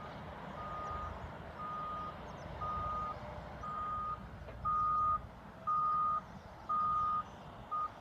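Backup alarm on a heavy vehicle at the landfill beeping about once a second in a single steady tone, growing clearly louder about halfway through, over a low engine rumble.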